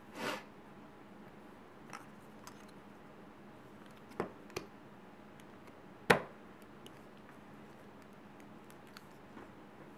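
3D-printed plastic parts being handled and fitted together: a short scraping rustle at the start, then a few separate sharp clicks and knocks, the loudest about six seconds in.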